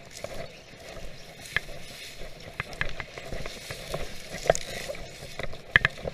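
Rustling and crunching through dry brush, with many scattered sharp snaps and clicks, rising out of near quiet at the start.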